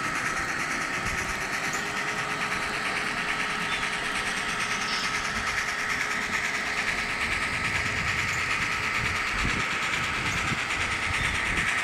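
N scale model steam locomotive running along the track with its passenger cars: a steady whirr from the motor and gears, made of fast fine ticking, with a thin steady whine.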